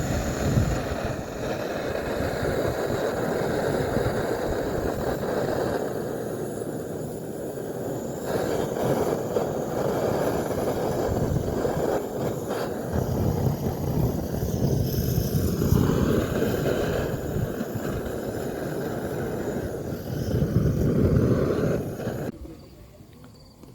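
Gas welding-torch burner running with a steady, dense rush of flame as it is held to campfire wood to light it, with strong wind buffeting over it. The sound cuts off abruptly near the end.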